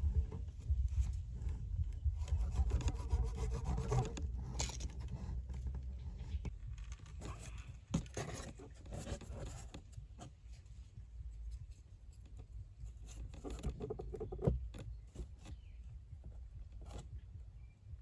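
Hands working corrugated cardboard, string and a thin bamboo stick: irregular rubbing and scraping with scattered light clicks and taps, over a low background rumble.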